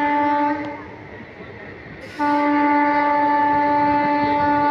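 Locomotive horn of a WAP-4 electric locomotive: a short blast that stops about half a second in, then a long steady blast starting a little after two seconds in. It is sounded as a warning for a level crossing. Train running noise fills the gap between the blasts.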